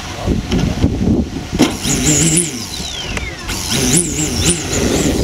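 Engine of a radio-controlled aerobatic model airplane idling, with two short throttle blips, about two and four seconds in.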